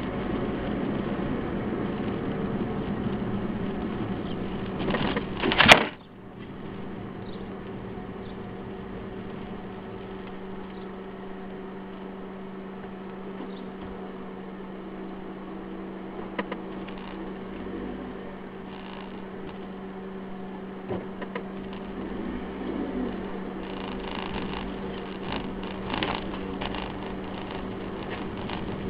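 Steady drone inside a car's cabin while it drives, with a constant hum from the engine and ventilation. A loud knock comes about six seconds in, after which the drone is quieter.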